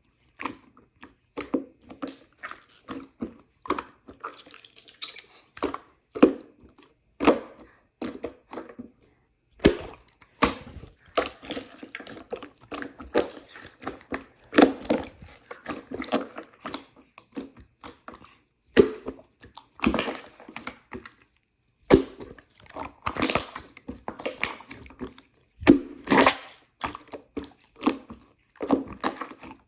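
Marbled slime being squeezed and kneaded by hand: irregular wet clicks and pops in quick clusters, with a few brief pauses.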